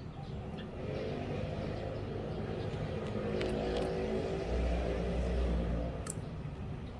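A motor vehicle passing by: its engine sound builds over several seconds, is loudest a little before the end, then falls away.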